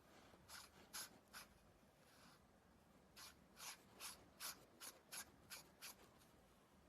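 Faint, brief rubbing and scraping strokes of hands handling the riflescope: three, then a quicker run of about nine at two or three a second.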